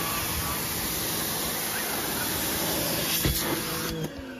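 Kärcher K1900PS electric pressure washer spraying a jet of water against a car door: a steady hiss of spray over the hum of the pump motor. It stops abruptly near the end.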